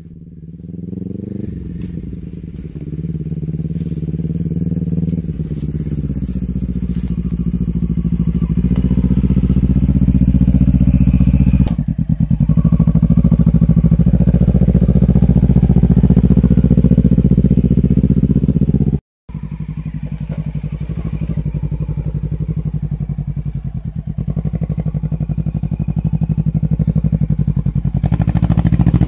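Quad bike (ATV) engine running at fairly steady revs, getting louder over the first several seconds as it draws nearer, with a sudden break for a moment about two-thirds of the way through before it carries on.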